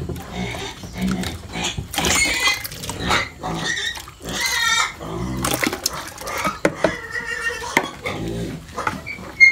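Pigs squealing and grunting in a run of loud, harsh cries, the longest about two seconds in and again about four and a half seconds in, with low grunts between them.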